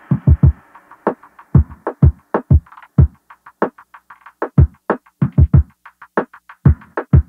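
Electronic background music with a drum-machine beat of deep kick-drum thumps and sharper hits.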